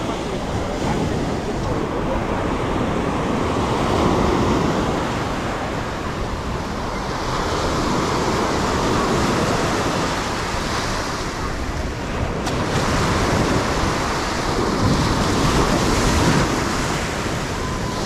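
Small sea waves breaking and washing up onto a sandy beach, the surf swelling and easing every few seconds as each wave comes in.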